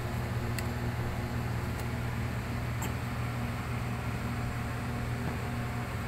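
Steady low mechanical hum of a running machine, even throughout, with a few faint ticks in the first half.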